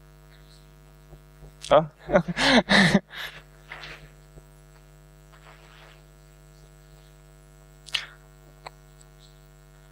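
Steady electrical mains hum, a buzz of many even tones, with a short burst of voice about two seconds in and a sharp click about eight seconds in.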